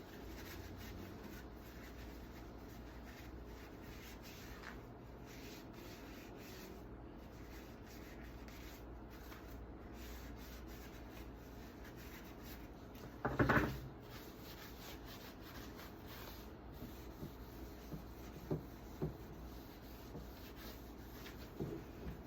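Paper towel rubbing as chainsaw parts are wiped clean, a faint steady scrubbing. There is one brief louder rustle or handling noise about halfway through, and a few light knocks near the end.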